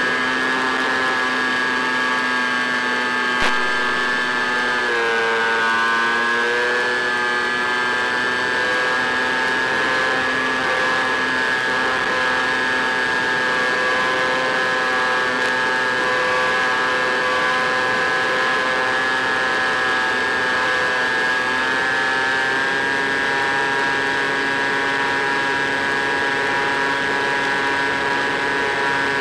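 Easy Star RC plane's electric motor and propeller running steadily under power as a hum with several pitches. The pitch dips briefly about five seconds in and rises a little near the end, with a single sharp click about three seconds in.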